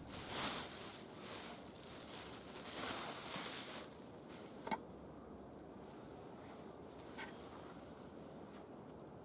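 Plastic bag rustling as it is handled, for about four seconds, followed by two short clicks a few seconds apart.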